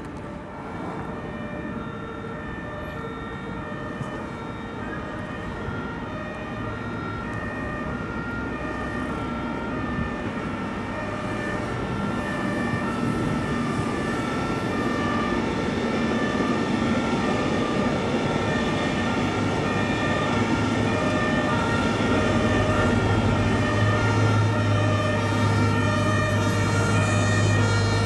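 Emergency vehicle siren sounding, growing steadily louder as it comes closer.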